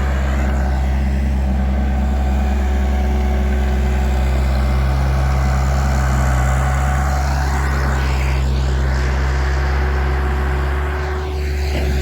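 Bobcat loader's engine running steadily at a constant speed, with a loud, even low drone.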